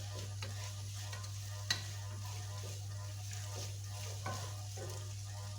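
Cooked chicken pieces and scrambled egg frying in a pan, sizzling while being stirred and scraped with a spatula, with one sharp clink a little under two seconds in. A steady low hum runs underneath.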